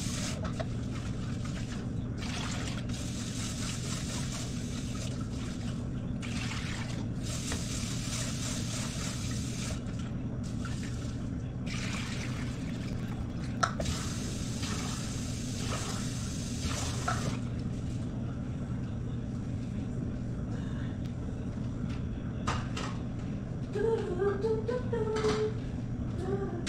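Water running from a tap in several bursts of a few seconds each, turned on and off, over a steady low hum.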